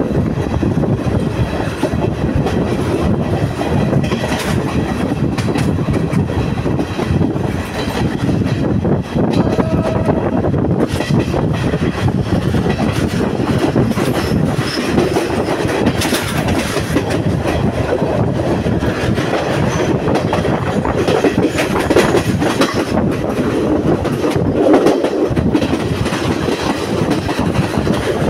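Moving passenger train heard from its open doorway: steady running noise of the wheels on the rails, with repeated clicks as they pass over rail joints.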